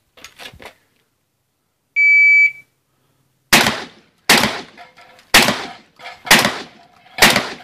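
A half-second electronic beep, then five shots from a Mossberg semi-automatic shotgun fired about a second apart, each with a short echo trailing after it.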